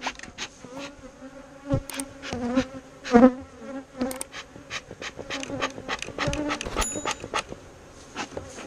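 Many honeybees buzzing around an opened hive in a steady hum, with many sharp clicks and knocks scattered throughout. The bees are agitated and defensive, which the beekeeper puts down to the approaching thunderstorm.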